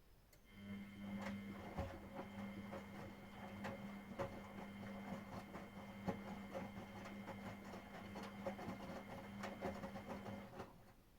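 Miele Professional WS5436 washing machine turning its drum during the wash: a steady motor hum with irregular knocks. It starts about half a second in and stops near the end, one turn of the wash rhythm between pauses.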